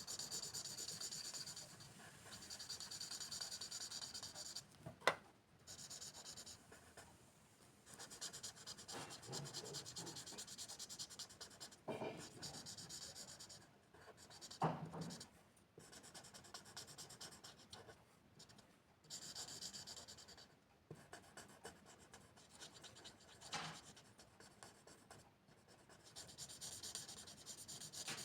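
A pen scratching across paper in long runs of strokes, drawing or colouring, broken by short pauses. A few sharp clicks cut in, the loudest about five seconds in.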